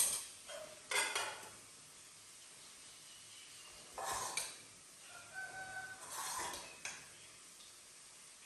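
Metal spoon clinking and scraping against a steel bowl in a few separate clatters, some with a brief ring. Under them, a faint steady sizzle of food frying in ghee in a kadai.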